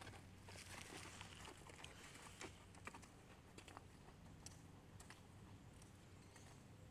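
Near silence: a faint outdoor background with a few light, scattered clicks.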